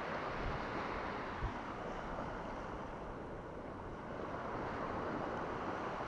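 Small waves steadily breaking and washing up a sandy shore, with wind on the microphone.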